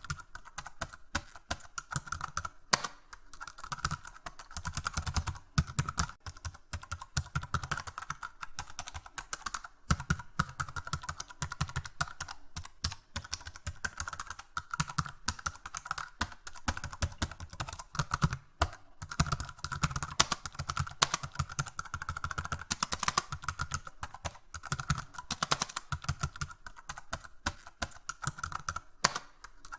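Continuous typing on a computer keyboard: rapid, irregular key clicks with no pauses longer than a moment.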